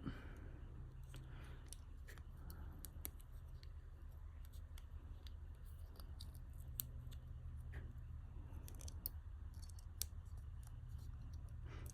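Scattered small plastic clicks and taps as the parts of a Ford flip key fob's case and button pad are handled and pressed together, over a low steady hum.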